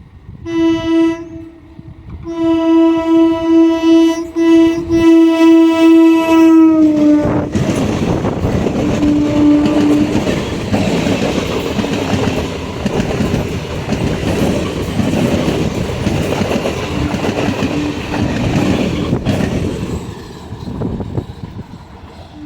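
Indian Railways locomotive horn: a short blast, then a long blast of about five seconds whose pitch drops as the train passes. Then the rattle and clickety-clack of the train going by for over ten seconds, with one more brief horn note early in the passing.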